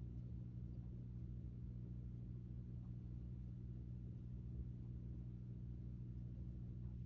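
Quiet room tone dominated by a steady low hum, with a few faint soft ticks.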